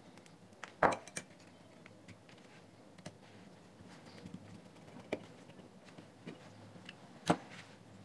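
Scattered light clicks and taps of a small screwdriver and plastic headphone earcup parts being handled, with a sharper click about a second in and another near the end.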